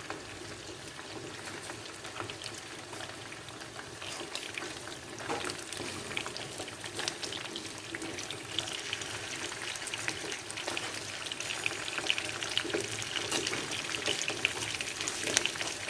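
Tofu pieces wrapped in fish paste frying in a pan of hot oil: a steady sizzle with many small crackles and pops, growing gradually louder as the oil heats up.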